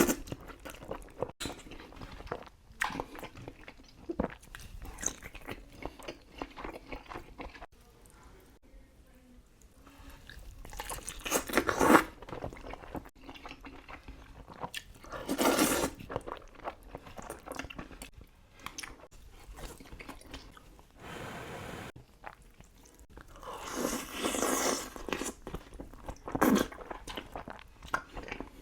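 A person eating Buldak spicy noodles close to the microphone: steady chewing and biting, broken four or five times by louder noisy bursts about a second long.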